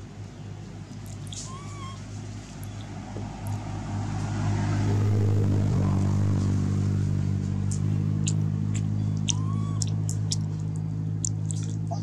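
A motor engine running steadily with a low hum, growing louder over the first few seconds and then holding steady. A few faint high chirps and ticks sound over it.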